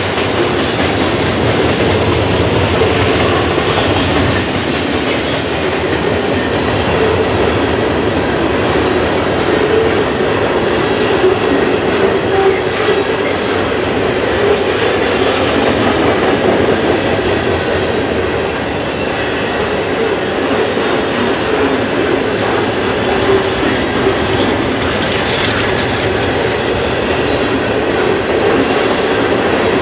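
A long freight train's cars rolling past steadily, a continuous wheel-on-rail rumble with the wheels clicking over the rail joints.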